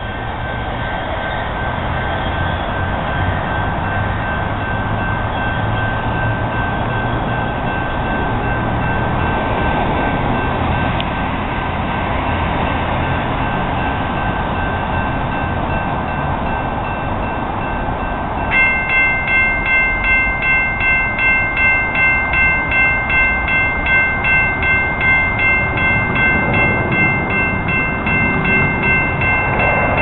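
Railroad crossing warning bell starting to ring about two-thirds of the way in, a repeating multi-tone ding of about two strikes a second, signalling an approaching light-rail train as the crossing activates. Before it, a steady low rumble.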